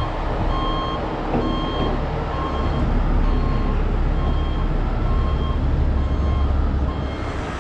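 Heavy truck's reverse alarm beeping about once a second over the steady low rumble of a heavy truck's engine running. Both stop abruptly about seven seconds in.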